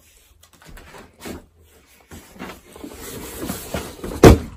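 Rustling and handling noise of a hand-held camera being carried and moved, with a loud knock about four seconds in as it is handled and set in place.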